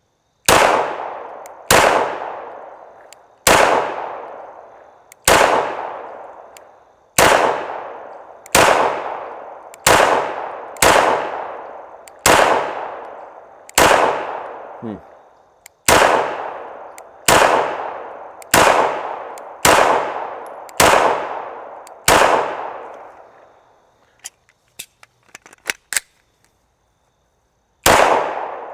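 A Walther Creed 9mm pistol being fired one-handed: a slow, steady string of about sixteen shots, one every one to two seconds, each ringing out for about a second. After a short pause with a few light clicks, one more shot comes near the end.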